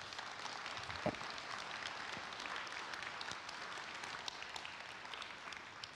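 A large congregation applauding, a dense patter of many hands clapping that dies away at the end.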